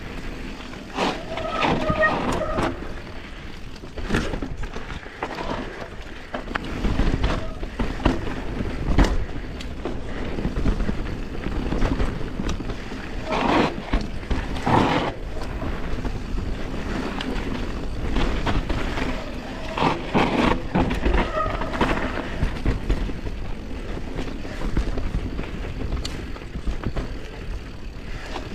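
YT Capra Core 3 MX mountain bike riding down a rough trail: steady tyre and trail noise with frequent sharp knocks and rattles as the bike goes over rough ground.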